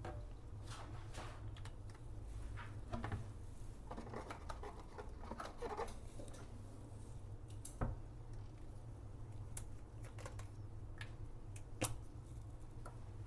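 Faint scattered taps, scrapes and rustles of small handling over a low steady hum, with two sharper clicks about eight and twelve seconds in.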